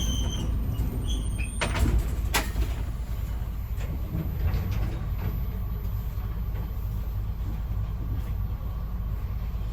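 Ex-JNR KiHa 205 diesel railcar heard from inside the car: a steady low engine and running rumble, with two sharp knocks about two seconds in.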